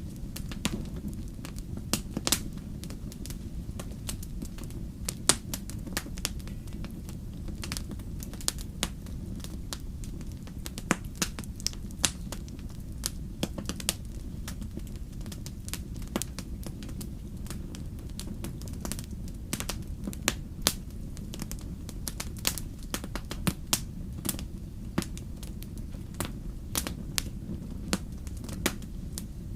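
Wood campfire crackling, with sharp pops at irregular moments, several of them loud, over a steady low rumble.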